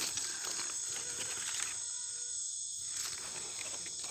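A steady, high-pitched chorus of insects, crickets or similar, with some light rustling in dry leaf litter during the first half.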